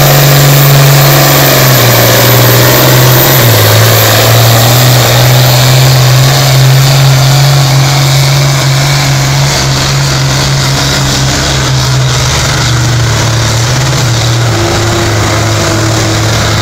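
Diesel farm tractor engine at full throttle, pulling a weight-transfer sled in a tractor pull. Its note drops a step about three seconds in as it lugs down under the growing load, then holds steady, growing a little fainter as the tractor moves away down the track.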